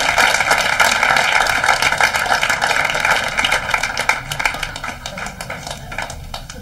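Audience applauding, dense at first, then thinning to scattered claps near the end.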